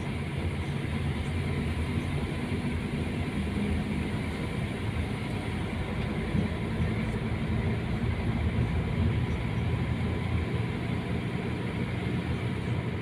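Steady engine and road noise heard from inside a moving vehicle's cabin: a continuous low drone that holds even throughout.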